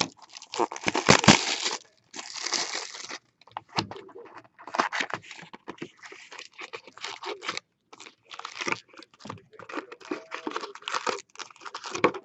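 Plastic wrapping on a sealed box of 1998-99 Upper Deck Ionix basketball cards being torn open and crinkled, in irregular crackling bursts.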